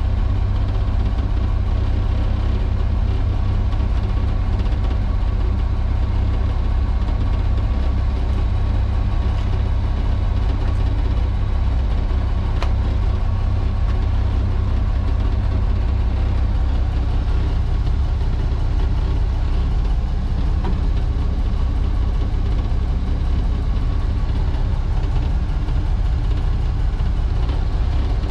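Naturally aspirated six-cylinder Cummins HBI-600 diesel of a 1949 General Electric diesel-electric locomotive idling steadily, with a deep low rumble.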